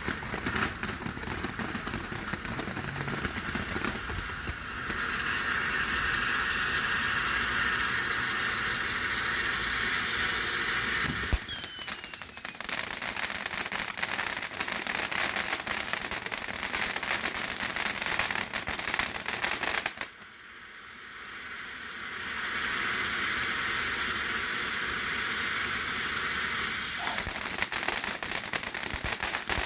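Phantom "Twilight Magic" consumer firework fountain spraying with a steady hissing crackle. About twelve seconds in it gets louder for a moment, with falling whistles. About twenty seconds in it dies down briefly, then builds up again.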